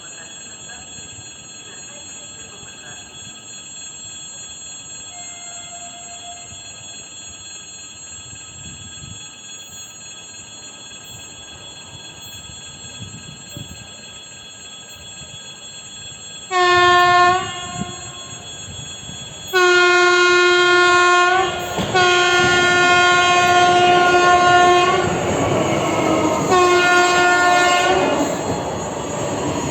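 EG2Tv 'Ivolga 2.0' electric train sounding its horn about halfway through: one short blast, then several longer ones. Its running noise grows louder under the later blasts as it approaches.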